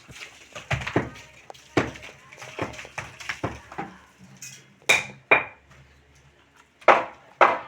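Hand tools striking hard materials at work: about a dozen irregular sharp knocks and metallic clinks, two of them ringing briefly, a short pause, then louder strikes near the end.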